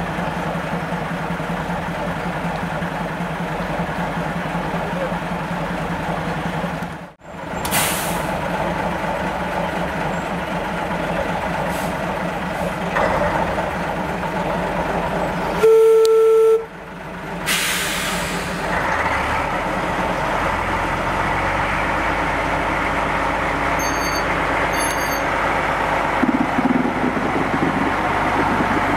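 Small diesel shunting locomotives running with a steady engine drone. A short single-note horn toot sounds about halfway through. In the second half the engine sound grows fuller and a little louder.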